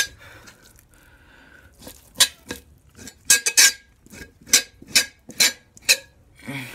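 Two-handled fleshing knife scraping fat and membrane off a beaver hide stretched over a fleshing beam: about eight short, hard scraping strokes, often in pairs, starting about two seconds in. A short low grunt from the man comes near the end.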